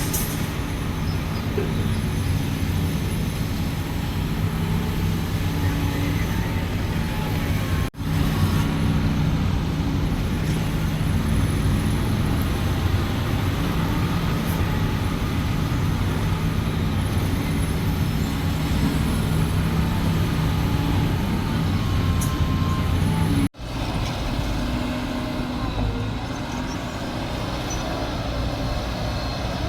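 Heavy construction machine's diesel engine running steadily under load, with a low drone. The sound drops out abruptly twice, about a third of the way in and again near the three-quarter mark.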